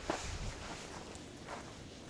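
Footsteps on loose, freshly dug garden soil as a person walks carrying a shovel, a few soft spaced steps.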